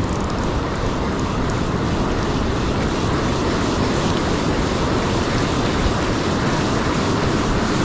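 Ocean surf washing onto the beach, with wind buffeting the microphone: a steady rushing noise in which no single wave stands out.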